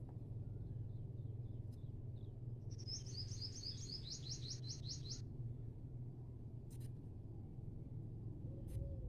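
A small bird singing a quick run of about a dozen high, falling notes, starting about three seconds in and lasting about two seconds, over a steady low hum.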